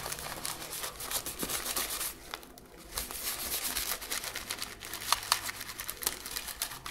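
Folded coffee filter, dampened with alcohol, rubbing and crinkling over the plastic shell of an Xbox One controller, with small clicks and taps from handling the controller. It eases off briefly about two and a half seconds in.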